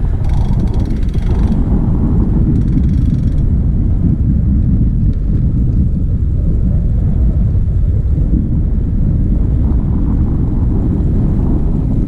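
Wind buffeting the microphone of a camera on a moving road bike: a loud, steady low rumble, with the bike's tyres rolling on rough asphalt underneath.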